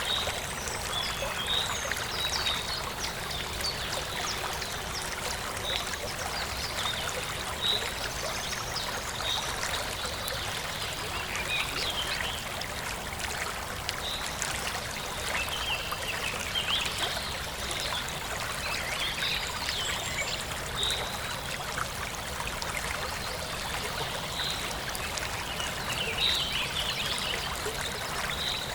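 Forest stream flowing and trickling steadily, with birds chirping: short high chirps every second or two over the water.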